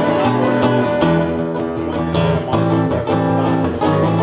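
Live acoustic plucked-string instrumental break in a country-style song, with quick picked notes ringing over steady chords.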